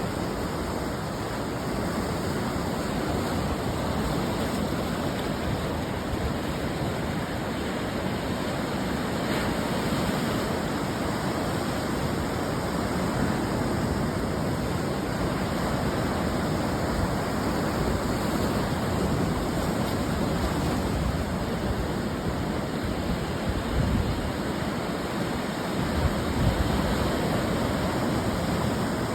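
Ocean surf breaking on a beach: a continuous rushing wash of waves with no gaps. A couple of louder surges come near the end as bigger waves break.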